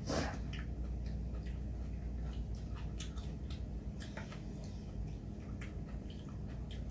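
Mealtime eating sounds: scattered small clicks of chopsticks against stainless steel bowls and chewing of ramen noodles and kimchi, with a short slurp just after the start. A steady low hum runs underneath.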